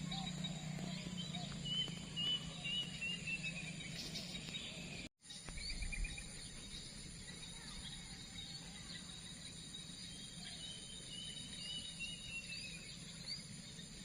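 Outdoor ambience with small birds chirping, including two short runs of quick repeated chirps, over a steady high insect buzz. The sound cuts out completely for a moment about five seconds in.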